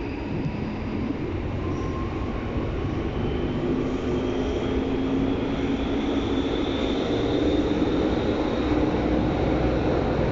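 Berlin U-Bahn type H train heard from inside the car in a tunnel: wheels and rails rumbling, with a faint traction-motor whine that rises slowly in pitch and grows a little louder as the train gathers speed.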